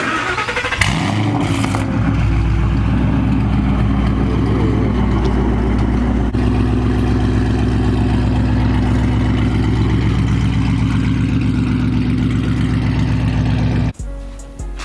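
2012 Shelby GT500's supercharged 5.4-litre V8 cranking and catching, flaring up in revs about a second in. It then settles into a loud, steady idle through an off-road X-pipe exhaust. The sound cuts off abruptly near the end.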